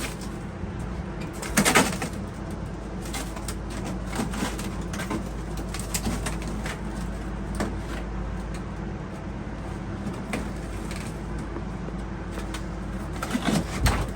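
Demolition of a rotten interior panel in a fibreglass sailboat: a loud crack and scrape about a second and a half in, scattered knocks and clicks, and a few more near the end as the panel catches on its last screws, over a steady low hum.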